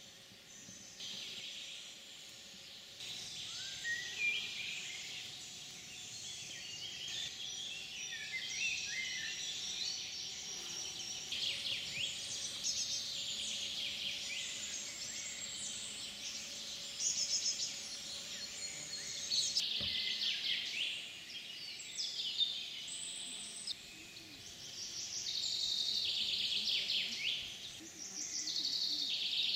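Several songbirds singing at once: overlapping high chirps and trills, busiest in the last few seconds, over a faint steady hum.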